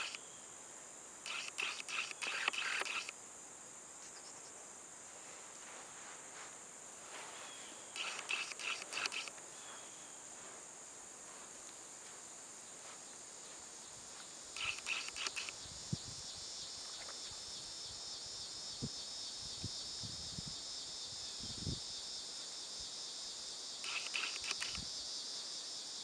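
Insects calling: a steady high-pitched drone, with louder bursts of rapid pulsing chirps lasting a second or two that come back every few seconds. A few faint low thumps sound in the second half.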